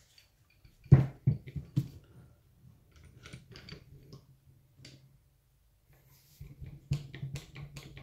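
Handling knocks and clicks of a handheld hydraulic crimper as a copper cable lug is fitted into its dies: a sharp knock about a second in and two more just after, light clicks in the middle, and a run of quicker clicks near the end.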